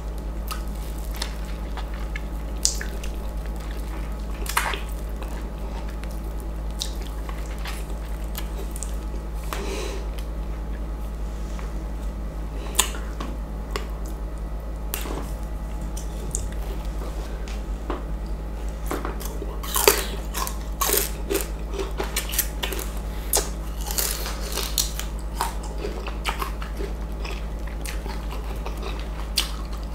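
Close-up wet eating sounds of ripe East Indian mango: sharp bites, squishing and mouth clicks as the juicy flesh is pulled off, coming thicker and louder in the second half. A steady low hum sits underneath.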